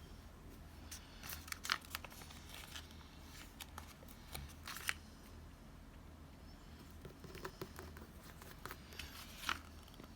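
Paper and sticker handling during journal layout: intermittent crinkling and short tearing sounds in a few clusters.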